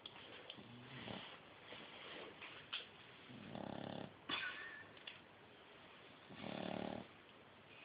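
Eight-week-old Shar Pei puppy snoring in its sleep: two buzzing snores about three seconds apart, with a fainter one before them, and a short sharp click about four seconds in.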